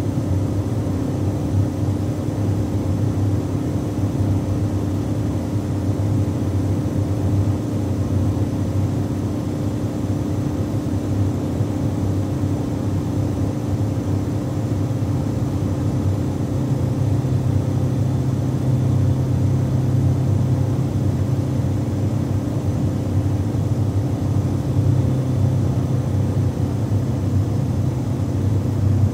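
Cabin interior of a 1980 Ford Fiesta with a 1300cc four-cylinder engine, cruising at a constant motorway speed: a steady low engine drone mixed with road and wind noise. The low hum grows slightly fuller about halfway through.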